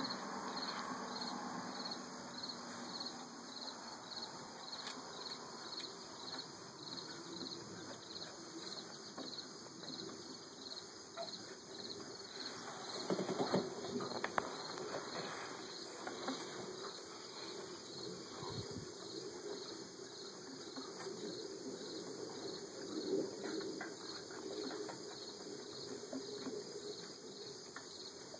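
Crickets chirping steadily, short high chirps repeating at an even pace. A few rustles and knocks come about halfway through.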